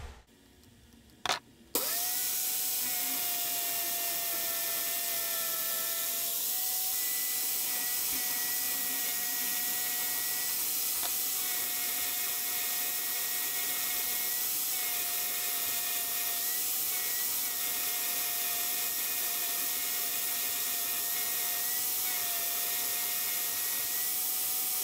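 Vise-mounted 4.5-inch Harbor Freight angle grinder with a 120-grit flap disc, switched on about two seconds in and then running with a steady whine. It grinds the burrs off the bandsaw-cut ends of 3/8-inch rebar, and its pitch sags briefly a few times as the steel is pressed against the disc.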